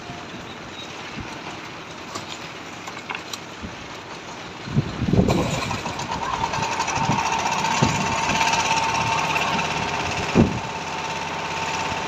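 A machine engine on the building site runs steadily, coming up louder about five seconds in with a steady whine, while a few dull thuds from the concrete work on the slab sound over it.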